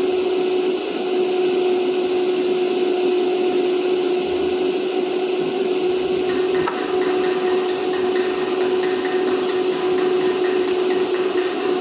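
Stick welding arc crackling and hissing steadily as the rod burns, over a steady hum.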